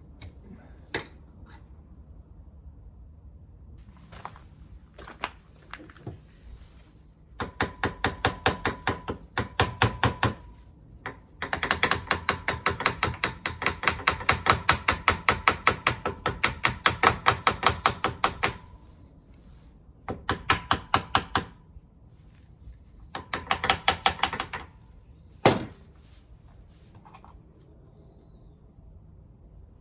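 Ratchet wrench clicking in rapid, even strokes, in several runs as bolts on a scooter engine are worked loose. A single sharp knock follows near the end.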